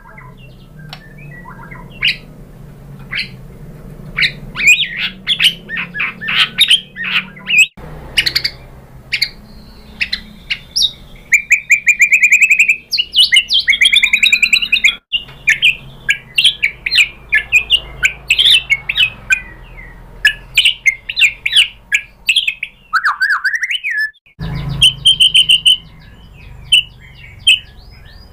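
White-rumped shama (murai batu) singing a loud, varied song of rapid whistles, trills and sharp harsh notes. The song breaks off abruptly three times where recordings are spliced together.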